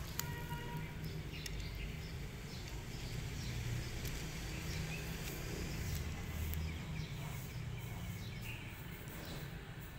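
Small kitten crunching dry kibble: scattered light crackling ticks over a steady low outdoor rumble, with a short high chirp in the first second.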